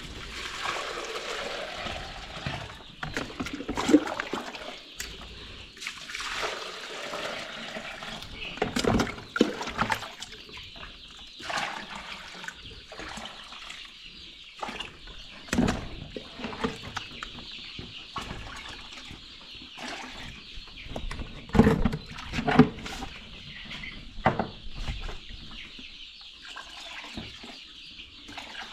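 Many chicks peeping steadily, with water splashing and plastic drinkers being handled, giving a few sharp knocks.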